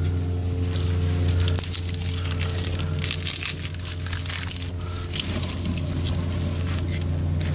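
Small kindling fire of dry grass and twigs crackling and snapping in a steel fire ring, with twigs being broken and pushed into the flames by hand. A steady low hum runs underneath.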